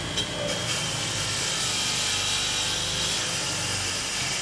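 Power tool running as it cuts, a steady rasping noise.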